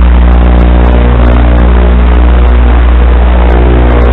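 Loud, steady buzzing hum of a tiny FPV whoop drone in flight: a low drone with a stack of even overtones over a hiss, barely changing in pitch.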